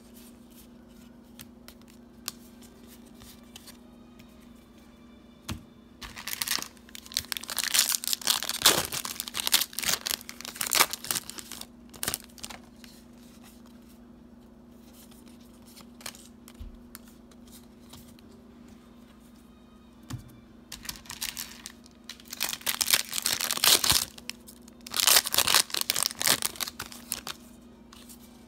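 Foil Yu-Gi-Oh booster pack wrappers being torn and crinkled in two spells, about six seconds in and again about twenty seconds in, over a steady low hum.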